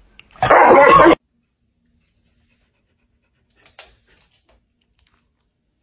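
A dog gives one loud, harsh outburst lasting under a second, about half a second in, then falls quiet.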